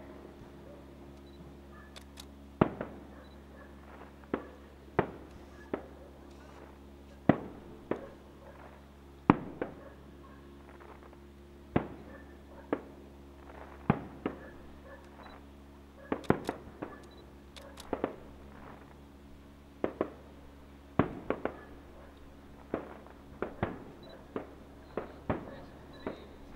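Aerial fireworks bursting: a string of sharp bangs, unevenly spaced at about one a second and coming thicker in the later part, each trailing a short echo. A faint steady low hum runs underneath.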